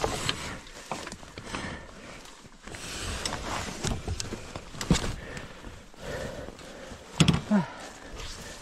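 Rustling in dry leaves and clunks of handling a fallen Yamaha TW200 dirt bike as it is hauled back upright, its engine off. A sharp knock comes about five seconds in, and a louder short sound about seven seconds in.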